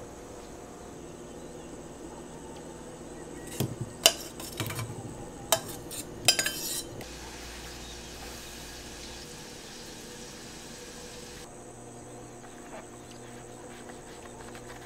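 Metal kitchenware clinking: a few sharp clinks and rattles with short ringing between about four and seven seconds in, over a steady low background.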